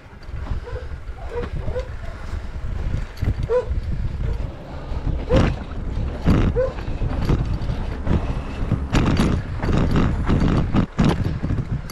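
Mountain bike ridden over a rough, stony track: a steady wind rumble on the camera microphone with irregular rattles and knocks from the bike, growing busier in the second half.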